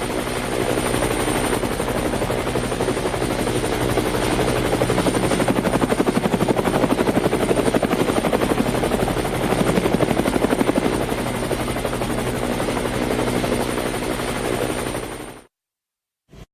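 Helicopter flying, its rotor blades beating in a rapid, even chop over a steady engine tone with a thin high whine. The sound cuts off suddenly about a second before the end.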